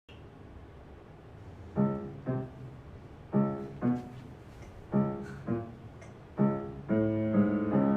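Piano playing an introduction: chords struck in pairs about every second and a half, then filling out into fuller held chords near the end.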